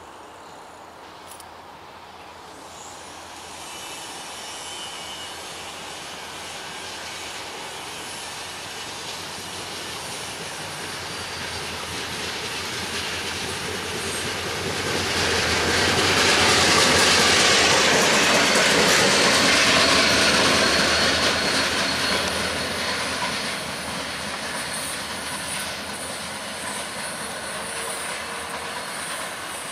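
EMD GP40-2 diesel locomotive running light, with its 16-cylinder two-stroke engine and its wheels on the rails. It grows louder, is loudest about halfway through as it passes close by, then eases off.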